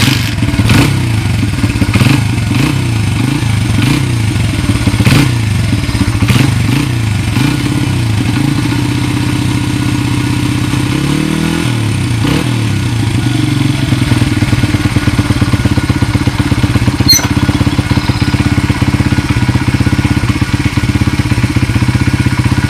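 1994 Honda XR100R's single-cylinder four-stroke engine catching on a kick with the choke on, its speed rising and falling unevenly for the first several seconds, dipping and picking up again about eleven seconds in, then settling into a steady run. It runs cleanly after a carburetor rebuild that cleared clogged jets.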